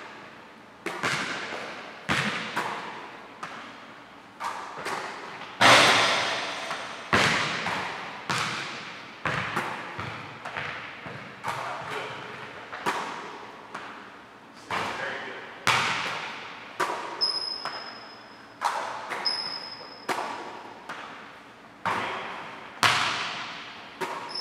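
Basketball thuds on a hardwood gym court, about one a second, as the ball bounces and is caught on passes. Each thud rings on with a long echo in the hall. In the second half there are a few brief high squeaks of sneakers on the floor.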